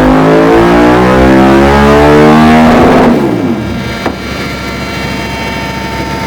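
KTM 990 Super Duke's V-twin through a Dominator full exhaust system, revving steadily upward under load. About three seconds in the throttle shuts and the engine note falls away. A sharp click follows about a second later, then quieter running with a faint steady whine.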